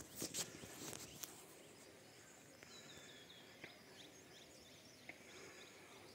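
Near-silent hillside air with faint, short bird chirps, a quick run of them a little before halfway and a few single ones later. A few soft rustles and clicks near the start.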